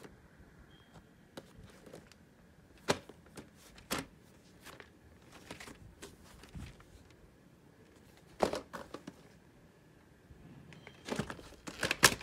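Handling noise from a plastic VHS clamshell case: scattered taps and scuffs, then a quick run of louder plastic clicks and rattles near the end as the case is snapped open.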